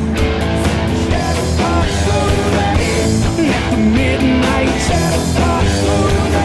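Background rock music: a rock song with guitar and a steady beat.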